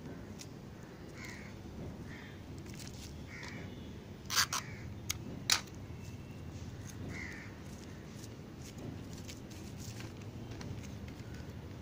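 Newspaper crinkling and rustling as hands press and fold it over a thin stick kite frame, with scattered light clicks and two sharp, louder clicks about four and a half and five and a half seconds in. A bird calls in short notes about four times in the background.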